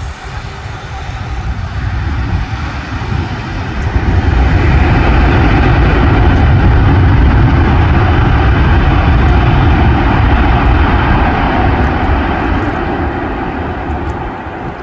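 Jet airliner landing, its engine noise building to a loud, steady rush with a deep rumble from about four seconds in, then easing off near the end.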